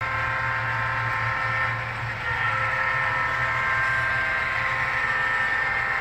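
Model railroad train running on a layout, a steady mechanical sound with a low hum and several steady high tones that shift a little about two seconds in.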